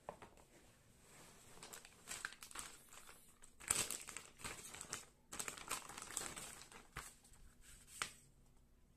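Clear plastic bag crinkling as hands handle it and pull printed manuals out of it. It comes in irregular bursts, loudest about four seconds in and again a second or two later, with a last sharp crackle near the end.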